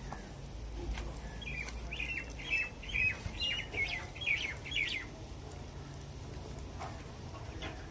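A small bird chirping, a quick run of about ten short high notes in the first half, over a low steady background rumble.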